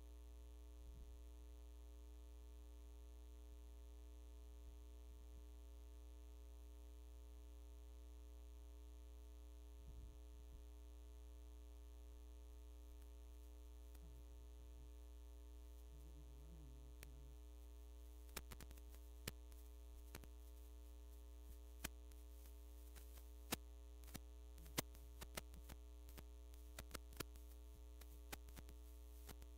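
Near silence apart from a steady electrical mains hum on the sound system's audio feed. In the second half, a dozen or so sharp, scattered clicks sound over the hum.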